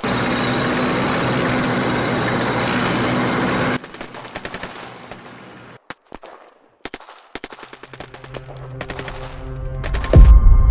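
A long, dense burst of machine-gun fire that cuts off abruptly about four seconds in, followed by a few scattered sharp clicks. Near the end music swells in and lands on a loud, deep boom.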